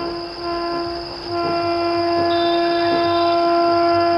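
Horn of an approaching WAP-4 electric locomotive: a short blast broken off twice in the first second, then one long steady blast, under a faint low rumble of the oncoming train.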